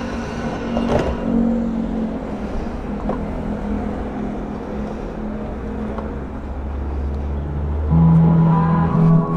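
Suzuki motorcycle riding along, its engine running steadily under wind and road noise, the low engine note growing a little louder a few seconds in. Background music comes back near the end.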